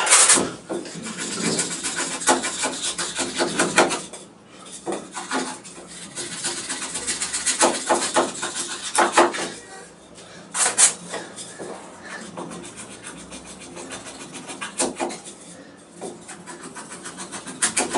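Folding knife blade shaving a block of soft wood: a quick run of scraping cuts in bursts with short pauses between them, with a sharp knock at the start.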